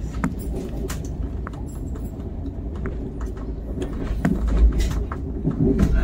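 Konark Express passenger train running on the track, heard from inside the coach: a steady low rumble broken by irregular sharp clicks and clacks of the wheels over rail joints and points.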